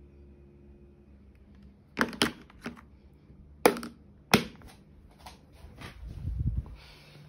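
Sharp plastic clicks and snaps, about five loud ones between two and four and a half seconds in and a few fainter ones after, as a digital ear thermometer is handled and its hard plastic case is closed. Near the end comes a low, muffled rumble of handling.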